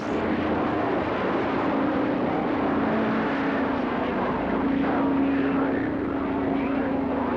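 CB radio receiver on channel 6 during skip: a strong signal comes in suddenly and fills the speaker with loud, steady static and a low steady tone, with no clear voice.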